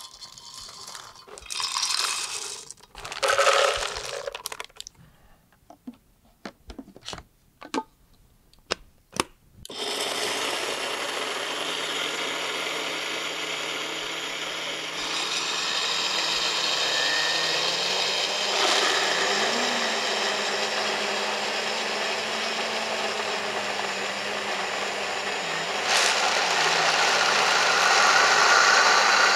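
Dry peanuts poured into blender jars, followed by several clicks. About ten seconds in a high-speed countertop blender starts grinding the peanuts with a steady motor noise, and more blenders join around fifteen and twenty-six seconds in, the combined noise growing louder.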